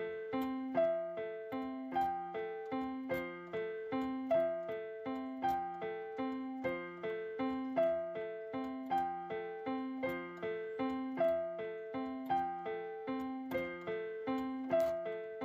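Background music: a piano or electric piano playing a steady, repeating pattern of single notes.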